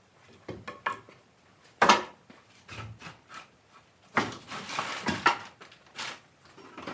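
Pieces of firewood knocking and clattering as they are handled and tossed onto a pile. The knocks come irregularly, with a sharp one about two seconds in and a longer clatter around four to five seconds.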